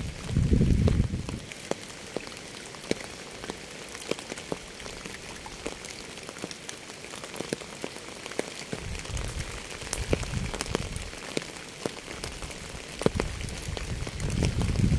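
Steady rain falling on a surface, with many single drops ticking sharply. A deep low rumble swells up and dies away three times: at the start, after the middle, and near the end.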